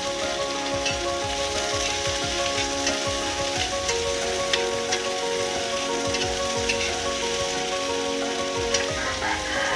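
Chopped green vegetables sizzling as they are stir-fried in a wok over a wood fire, with a metal ladle clinking against the pan now and then. Soft background music with slow held notes lies under it.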